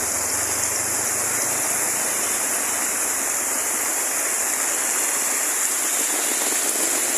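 Running water rushing steadily, an even wash like a stream or small waterfall: rainwater flowing where heavy rain has washed out a dirt road.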